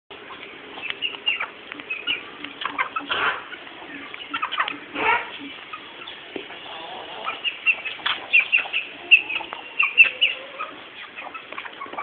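Aseel chickens clucking, with many short high calls throughout and two louder flapping bursts about three and five seconds in.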